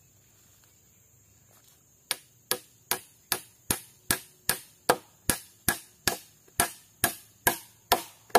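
A steady series of about sixteen sharp chopping strikes, roughly two and a half a second, starting about two seconds in. A steady high-pitched whine runs underneath.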